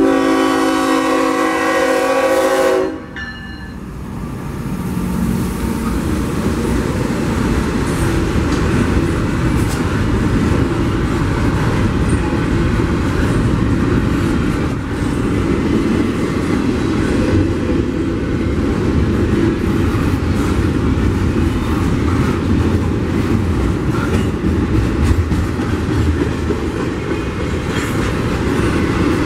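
A CSX diesel locomotive's air horn blows for about three seconds as it nears the grade crossing and cuts off sharply. The locomotives then pass, and a long train of double-stack intermodal container cars rolls by with a steady rumble and wheel clatter.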